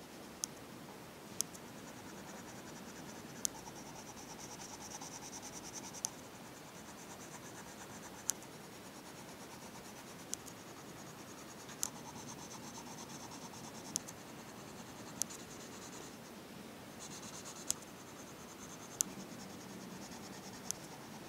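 Colour pencil scratching rapidly back and forth on paper as it shades in a region, pausing briefly now and then, with a sharp click every second or two.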